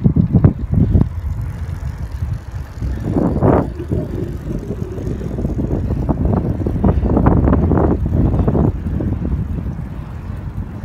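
Wind buffeting the microphone of a camera filming from a moving bicycle: a loud, gusting low rumble with sharp surges, strongest in the first second and again between about seven and nine seconds in.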